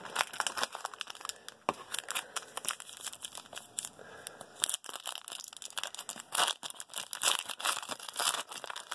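Foil trading-card pack wrapper crinkling and tearing as a pack is pulled from the box and opened by hand, a steady stream of crackles that grows heaviest in the last few seconds.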